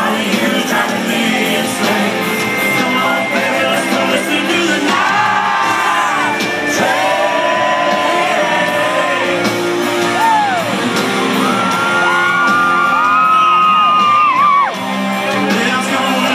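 Live country band playing, with a male lead singer holding long, wavering notes, heard from within the concert crowd.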